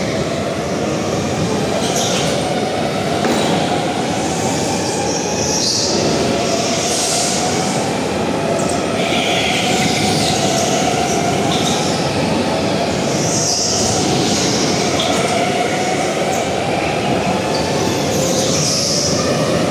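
Go-kart running continuously, its pitch wavering up and down, with high squeals coming and going every few seconds.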